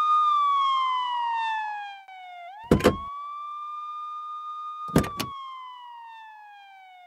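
Police siren wailing: each cycle holds high, falls slowly in pitch, then sweeps quickly back up, and the siren drops in level after about two seconds. Two sharp car-door clunks cut in, about three seconds in and again around five seconds.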